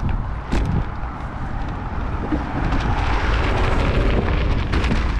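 Wind rumble on the microphone of a camera riding on a moving bicycle, with tyre noise growing brighter as the bike rolls onto gravel and two sharp knocks from bumps in the first second.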